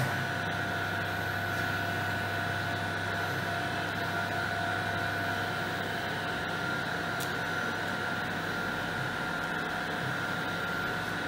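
Deckel FP3 NC milling machine running under power: a steady mechanical hum with a couple of steady higher tones over it.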